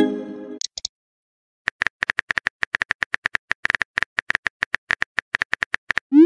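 Texting-app sound effects: a short pitched chime at the start, then after a pause a long run of rapid phone-keyboard tap clicks as a message is typed, ending in a short rising swoosh as it is sent.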